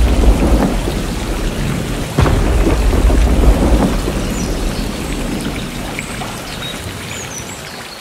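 Heavy rain falling steadily, with thunder: a rumble already rolling at the start, then a sharp thunderclap about two seconds in whose deep rumble slowly fades away.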